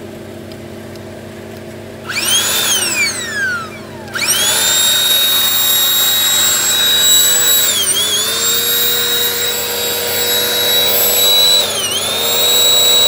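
A 12-volt car air pump's electric motor inflating a pool float with a loud whine. It starts about two seconds in with a falling pitch and cuts out, then restarts with a quick rise and settles into a steady high whine that dips briefly in pitch twice. Before it starts there is a steady low hum.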